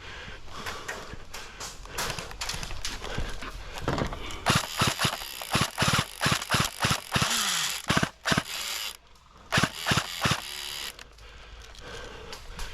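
Airsoft guns firing a quick run of single shots, several a second, from about four seconds in until near the end, after a quieter start.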